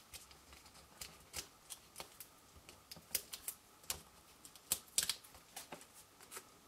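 Scattered light, irregular clicks and taps of fingertips, long fingernails and cardstock on a craft mat as small card pieces and foam dimensionals are pressed down by hand.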